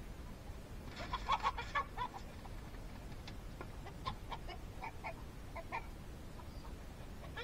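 Chicken clucking: a quick run of short clucks about a second in, then scattered single clucks.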